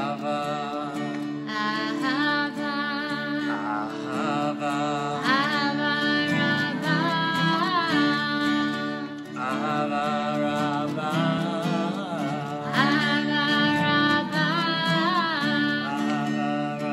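A woman and a man singing a slow song on the Hebrew word "ahava" (love), to a strummed acoustic guitar over a steady drone from a hand-pumped shruti box.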